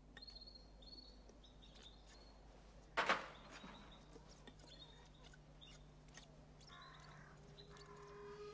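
Faint chirping of small caged songbirds, short high chirps scattered throughout. A single sharp knock about three seconds in is the loudest sound, and music begins to come in near the end.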